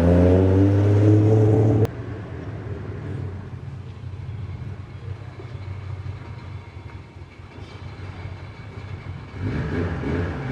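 Rebuilt Toyota 1JZ inline-six in a Chaser JZX100 revving up under acceleration. About two seconds in the engine note cuts off sharply to a quieter, steady engine and road rumble.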